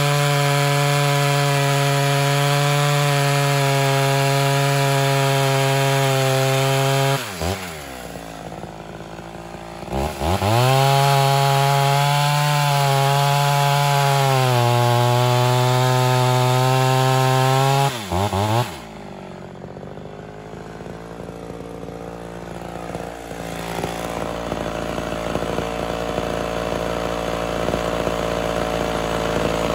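Ported Homelite Super XL Auto two-stroke chainsaw cutting a log at full throttle, dropping back to idle about seven seconds in, revving up into a second cut about three seconds later with its pitch sagging a little as the chain loads, then falling to idle near eighteen seconds and idling for the rest.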